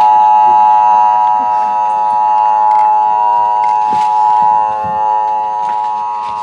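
A loud, steady held tone, rich in overtones, with a few faint clicks under it.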